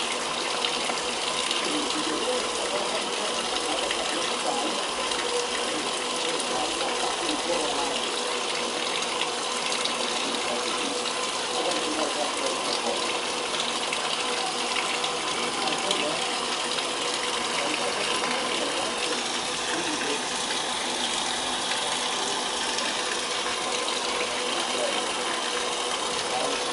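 Brastemp BWL07A washing machine filling with water at the start of a wash cycle: a steady rush of water pouring into the tub.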